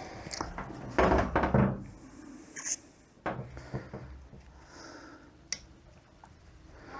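Knocks, clicks and clatter of transmission parts and hand tools being handled on a workbench, loudest about a second in.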